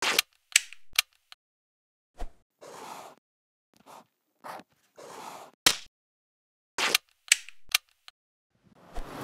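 A string of sharp clicks and short scratchy strokes of a marker pen drawn across paper, each separated by a silent gap.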